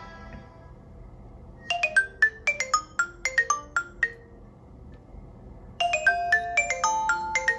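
Ringtone on a Nokia Lumia 1520 running Windows Phone 8: a quick run of about a dozen bright, struck notes starts about a second and a half in and lasts a couple of seconds. The same phrase starts again after a short pause near the end. The last notes of the previous tone are dying away at the very start.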